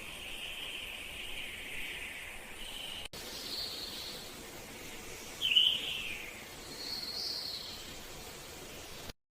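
Bird calls: a sharp, falling call about five and a half seconds in is the loudest, with thinner high calls before and after it. Before them, a steady high buzz like insects' stops after about two and a half seconds, and the sound cuts off abruptly near the end.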